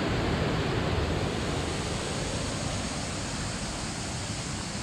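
Mountain stream rushing down a small waterfall into a rocky pool, a steady roar of water that grows slightly fainter.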